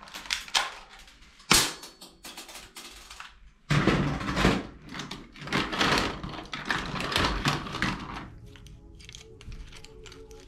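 Hard plastic toy guns and toys knocking and clattering together as hands rummage through a cardboard box full of them: a few sharp knocks, then a dense stretch of rattling in the middle, settling to lighter clicks near the end.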